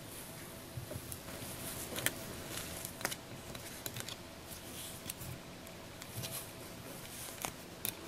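Faint, irregular light clicks and scrapes of a metal loom hook lifting yarn loops over the pegs of a round knitting loom, one peg after another.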